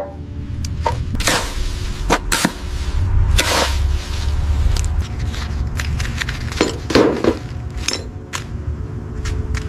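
Irregular handling noises: knocks, clicks and several scraping swishes over a steady low rumble.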